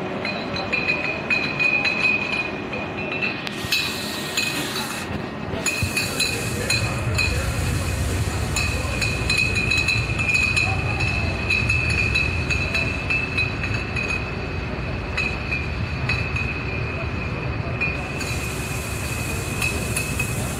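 Glass beer bottles clinking against each other as they ride a stainless-steel slat chain conveyor, a constant patter of small glassy ticks. Behind it, bottling-line machinery keeps up a steady high whine and a low rumble.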